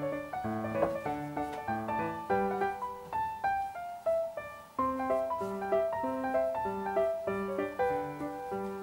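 Background piano music, a continuous flowing run of notes.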